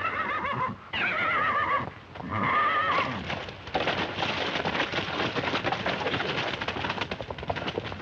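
A horse whinnying, three calls with a wavering, falling pitch in the first three seconds, then a rapid clatter of galloping hooves from about four seconds in.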